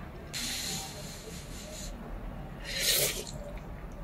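A person slurping spicy instant noodles, with air drawn in through the mouth: a long hissing slurp of about a second and a half, then a shorter, louder slurp near the end.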